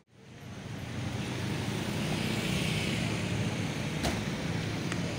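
Street traffic noise: a steady rumble of passing vehicles, swelling in over about a second after a brief dropout, with a single sharp click about four seconds in.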